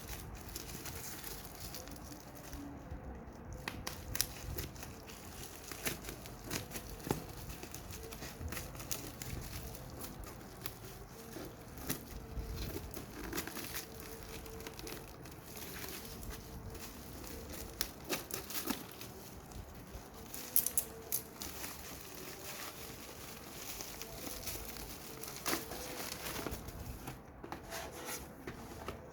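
Bubble wrap and plastic packaging crinkling and rustling as lamps are unwrapped and handled by hand, with irregular crackles and small taps throughout.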